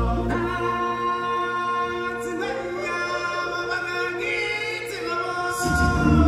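A choir of voices singing sustained lines in a live stage musical. The low accompaniment drops away just after the start, leaving the voices nearly alone, and comes back in near the end.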